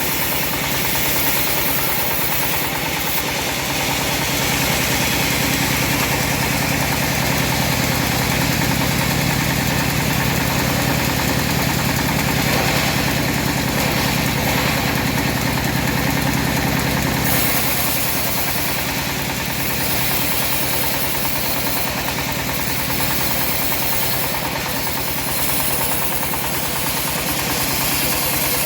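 Engine of a homemade bandsaw sawmill running steadily, with a continuous mechanical drone. About seventeen seconds in the sound eases and thins a little.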